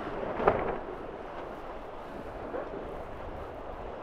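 Wind rushing over the microphone and water along the hulls of a Tornado racing catamaran sailing downwind, with one brief louder rush about half a second in.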